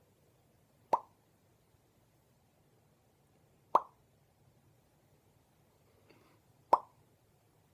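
Three mouth pops, made one at a time about three seconds apart, each short and sharp.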